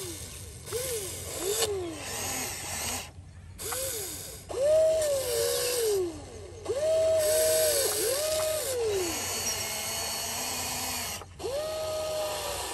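Radio-controlled toy excavator's small electric motors whining in a run of separate bursts, each rising and then falling in pitch, as the arm and bucket dig and the machine shifts. The longest and loudest bursts come in the middle.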